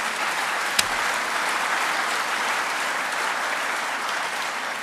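Audience applauding steadily, easing off near the end, with one sharp click about a second in.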